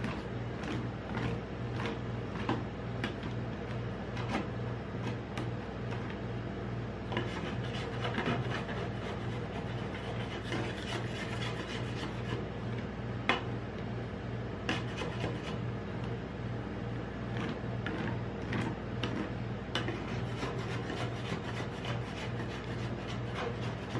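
Steel spatulas scraping, smoothing and tapping on the frozen metal plate of a rolled-ice-cream cold plate as chocolate ice cream is spread and scored, with frequent sharp clicks of metal on metal. A steady low hum runs underneath.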